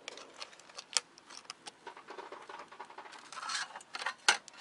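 Utility knife blade scraping and cutting into a thin metal plate: irregular scratching strokes and clicks, with a longer scrape about three and a half seconds in and a sharp click just after.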